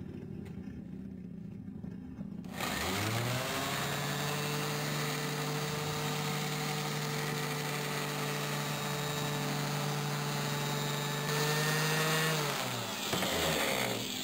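Electric random orbital sander starting up about two and a half seconds in with a rising whine, running at a steady pitch while buffing polishing paste on a chrome exhaust pipe, and spinning down with falling pitch near the end.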